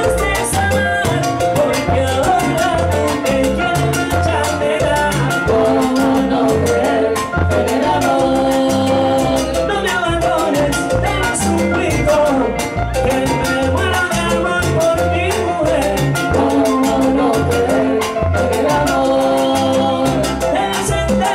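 Live salsa band playing at full volume: piano, bass, congas, timbales and trombones, with lead and backing vocals over a steady pulsing bass line.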